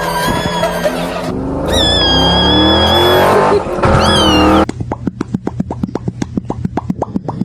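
Car sound effects: a long tire screech over an engine revving up, then a rapid run of clicks, about eight a second.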